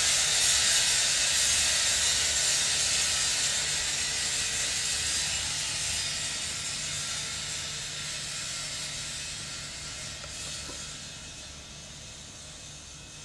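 Noise music: a dense, hissing wash of sound over a low steady hum, fading out steadily.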